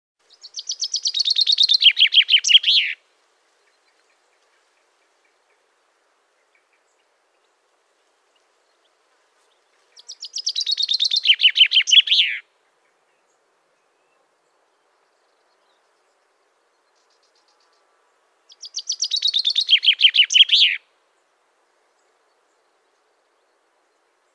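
A songbird singing the same short phrase three times, about eight seconds apart: each a quick, speeding run of notes that falls in pitch and ends abruptly.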